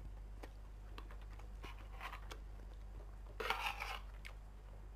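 Eating sounds: small clicks and quiet chewing of crisp fried tempeh. About three and a half seconds in there is a short, louder scrape of a metal spoon and fork on a ceramic plate.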